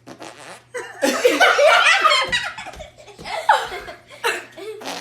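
Loud laughter coming in several bouts, starting about a second in.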